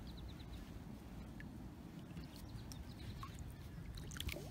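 Quiet open-water ambience around a kayak: a steady low rumble with scattered faint ticks, one a little louder near the end.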